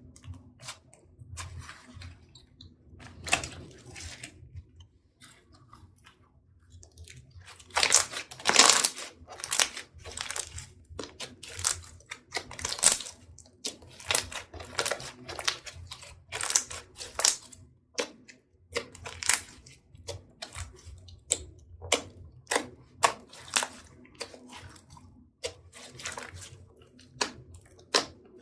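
Slime being kneaded and pressed by hand, sticky and squishy at first, then from about eight seconds in a run of sharp pops and crackles, one or two a second.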